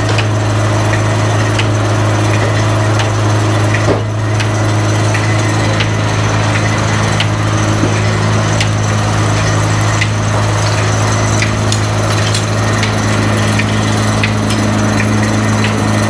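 Antique Farquhar sawmill's 52-inch circular blade running and cutting through a log on the carriage, over the steady hum of the engine driving it by a flat belt, with scattered sharp clicks and knocks.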